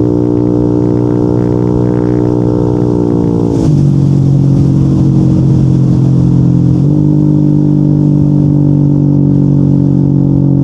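Yamaha NMAX 155's single-cylinder four-stroke engine running through an aftermarket Yoshimura RS2 exhaust while the scooter is ridden, a steady exhaust note. The pitch slides down about three and a half seconds in and steps back up around seven seconds.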